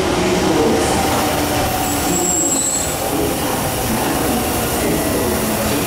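A Meitetsu Panorama Super electric train pulls into the platform on the adjacent track, its wheels and running gear rumbling steadily as it slows. There is a brief high squeal about two seconds in.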